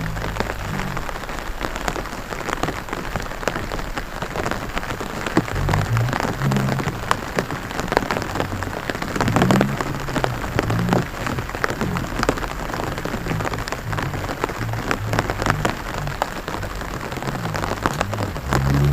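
Rain pattering onto the standing water of a flooded rice paddy: a steady hiss of many drops with individual sharp drips all through.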